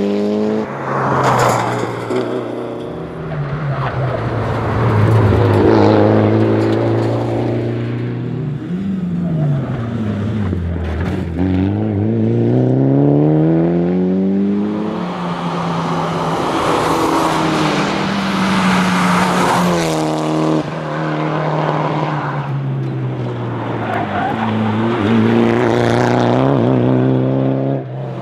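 Mitsubishi Lancer Evolution IX RS's turbocharged 2.0-litre four-cylinder engine driven hard on a tarmac rally stage. The revs climb through the gears, then fall away and pick up again repeatedly as the car brakes, downshifts and accelerates out of corners.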